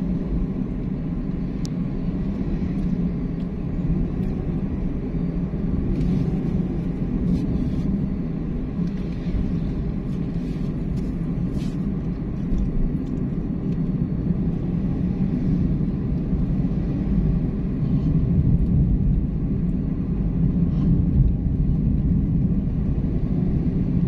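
A car on the move: steady, low rumble of engine and road noise.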